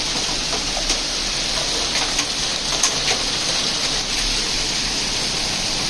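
Heavy hail mixed with rain pouring down in a steady dense hiss, with scattered sharp ticks of hailstones striking.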